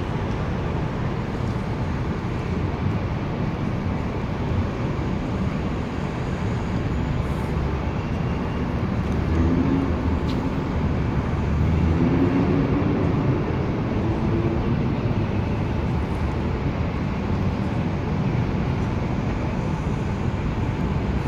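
Steady city traffic noise: a constant low rumble of vehicles on the surrounding roads.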